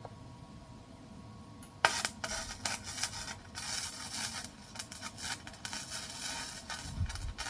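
Harsh, irregular scraping on metal, starting sharply about two seconds in, from work on a broken lawnmower handle.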